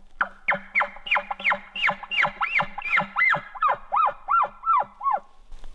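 Hand-blown elk call through a bugle tube: a rapid series of about sixteen short squealing notes, roughly three a second, each sliding down in pitch, the later ones lower and arched, imitating an elk.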